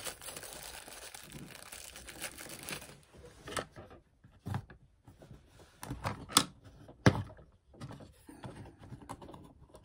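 A small clear plastic bag crinkling as it is handled, then several separate light knocks and clicks from hands handling a wooden tray shelf.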